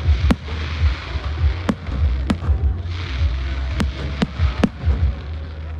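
Aerial fireworks display: about seven sharp bangs of bursting shells in under six seconds, over a continuous low rumble.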